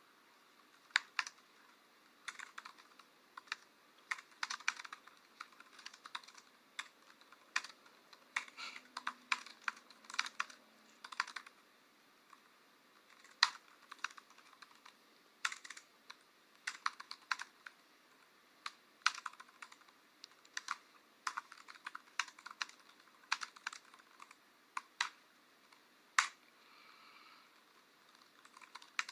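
Typing on a computer keyboard: clusters of quick key clicks in irregular bursts, with short pauses between runs of keystrokes.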